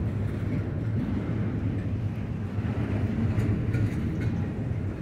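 Double-stack intermodal freight cars rolling past, a steady low rumble of steel wheels on the rails, with a few faint ticks.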